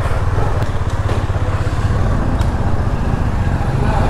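Husqvarna 250cc motorcycle's single-cylinder KTM engine and exhaust running steadily under way, heard from the saddle.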